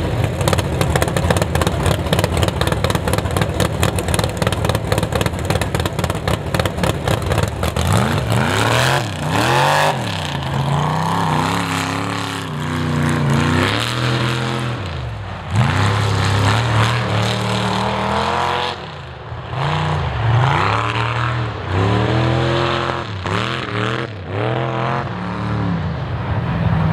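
Mega truck engine running with a fast, even pulse for about the first eight seconds, then revving up and down again and again as the truck drives the dirt course.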